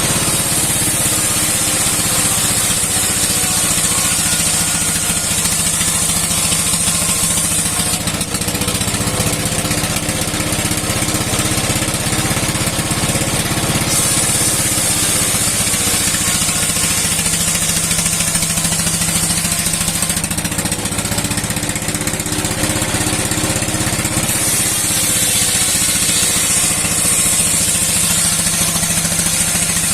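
Old stationary engine, about 60 years old, running steadily to drive a steel sawmill blade through wood. A high hiss rises over the engine's running three times and falls away again in between.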